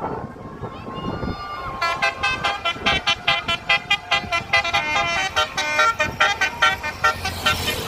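Indonesian bus 'telolet' multi-tone horn playing a fast tune. A few stepped tones start about a second in, then quick short notes follow several times a second from about two seconds in.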